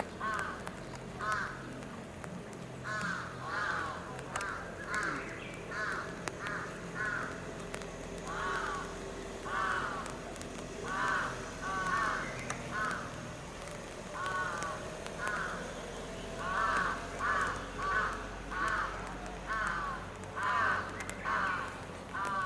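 Crows cawing over and over, short calls coming about one or two a second, often in quick runs of three or four.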